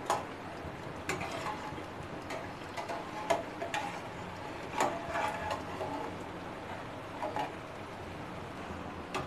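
Metal tongs clicking and tapping against a steel kadhai as jalebis are lifted out of the hot oil: a scattering of light, irregular clicks over a faint steady frying hiss.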